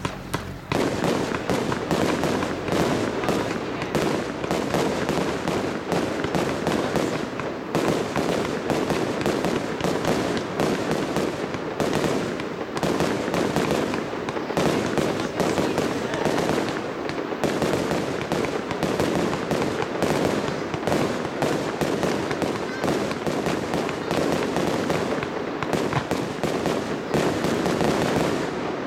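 Fireworks display: a dense, unbroken run of rapid bangs and crackling.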